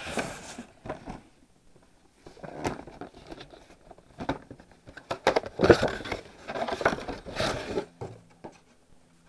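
Cardboard and plastic packaging being handled: irregular crinkling, rustling and scraping with small knocks as the large box is opened, busiest in the second half.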